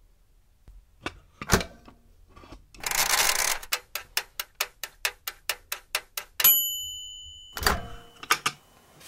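Toaster oven sounds: the door clicks shut, the timer dial is turned with a brief scrape, and then the timer ticks about four or five times a second until a bell dings and rings away. Near the end there is a clunk and clicks as the door is opened again.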